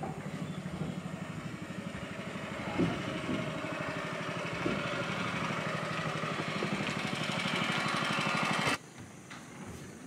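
Small boat's motor running steadily while under way, with a fine, even pulse. It stops suddenly near the end, leaving a much quieter background.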